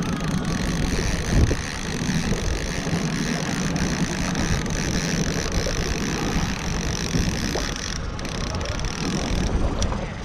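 Boat's outboard motor running steadily at trolling speed, mixed with wind noise on the microphone.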